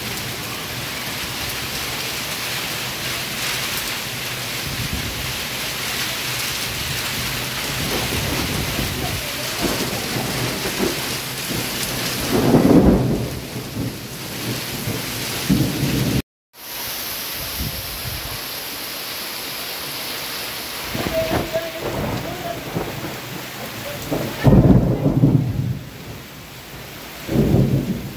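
Heavy rain pouring steadily in a thunderstorm, with low rumbles of thunder about halfway through and twice near the end. The sound drops out for a moment just past halfway.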